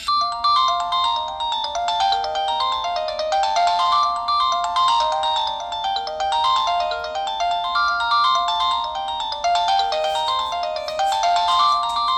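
A Samsung SPH-A640 cell phone playing one of its default ringtones: a quick melody of short electronic notes stepping up and down in a phrase that loops over and over.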